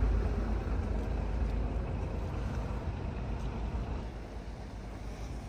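Steady low rumble of a moored high-speed passenger boat's engine running at idle, easing a little in the second half.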